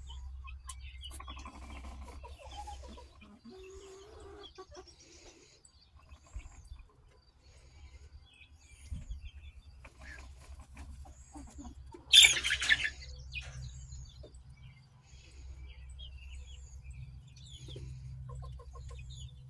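A small flock of chickens, hens and roosters, clucking and chirping softly in short scattered calls. A single brief, loud, noisy burst stands out about two-thirds of the way through.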